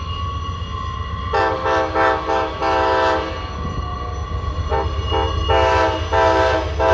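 Amtrak passenger locomotive's multi-note chime horn sounding two runs of quick blasts, short toots and longer ones, starting about a second in and again near five seconds. A steady low rumble from the approaching train lies underneath.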